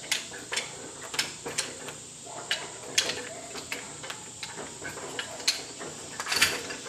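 Metal gun parts being fitted together by hand: irregular sharp metallic clicks and light scrapes, a few a second, with a louder cluster near the end.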